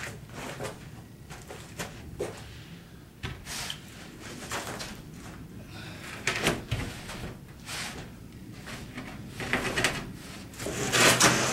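A sheet of plywood being handled and slid: scattered wooden knocks and scrapes, with a louder, longer scrape near the end.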